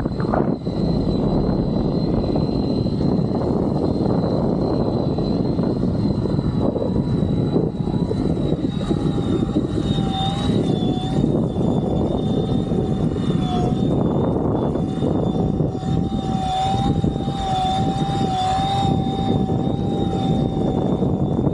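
Flite Ultra eFoil's electric motor and propeller whining under way, over a steady rush of wind and water. A high whine holds throughout, and a second, lower whine joins about nine seconds in, both wavering slightly.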